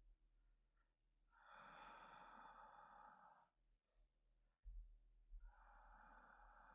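A man's slow, heavy, sleepy breathing: two long breaths of about two seconds each, the second about two seconds after the first ends.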